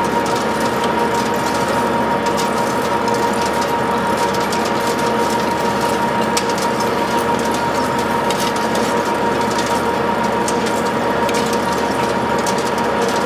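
WMW Magdeburg DP3 facing lathe running, its gear train giving a steady high whine over a dense, even mechanical clatter.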